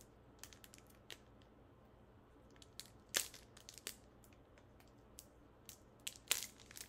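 Foil Pokémon booster pack wrapper being handled and pulled at to tear it open, with the pack putting up some resistance. Scattered faint crinkles and crackles, with two louder crackles about three and six seconds in.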